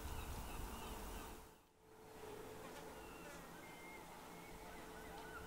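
Faint outdoor ambience: a steady low hum under faint high chirps, dipping almost to silence briefly about a second and a half in.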